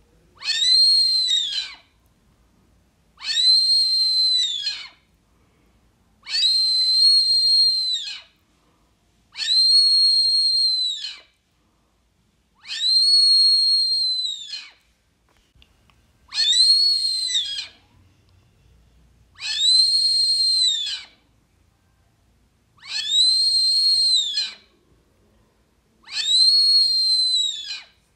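Lure call for the Brazilian teal (ananaí) blown in long, even whistles: nine high notes of about a second and a half each, one every three seconds or so, each rising briefly at the start and dropping at the end.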